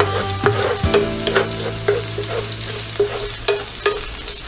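Minced garlic sizzling in oil in a nonstick frying pan while a wooden spatula stirs it, knocking and scraping against the pan about twice a second.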